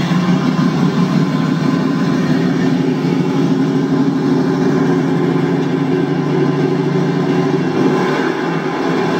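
AMC Rebel's engine running steadily as the car drives along, a continuous low drone.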